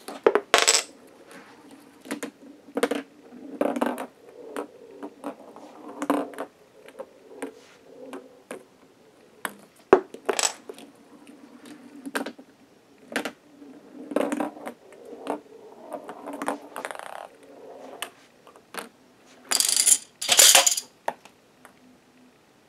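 Hollow plastic ping pong balls rolling along plastic toy car track and through K'Nex flip-flop track switches. A low rolling rumble runs under many sharp clicks and clacks as the balls hit the switch arms, the track and the wooden blocks. Two louder clattering bursts come near the end.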